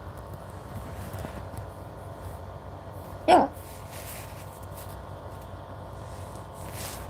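A single hiccup from a woman about three seconds in, short and sharp, over a steady low background hum.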